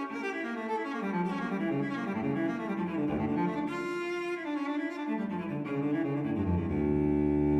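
Background music of bowed strings moving from note to note, swelling into a louder held chord near the end.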